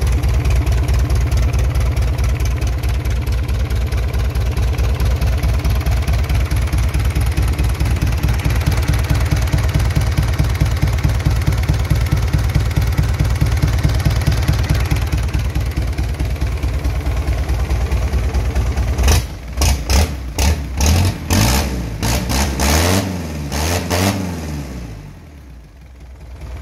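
Mitsubishi 4D33 four-cylinder diesel engine idling steadily with an even firing beat, then given a series of quick throttle blips about three-quarters of the way in, the revs rising and falling, before the sound drops low briefly near the end.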